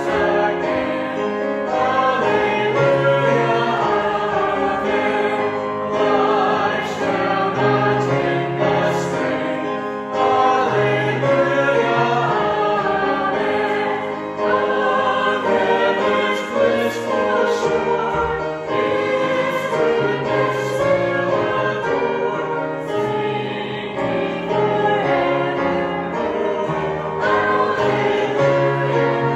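A congregation singing a hymn together in unison, accompanied by piano.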